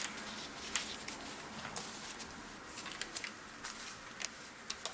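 Faint, irregular light ticks and rustles of paper handling: a small sticker peeled from its sheet and pressed onto a planner page.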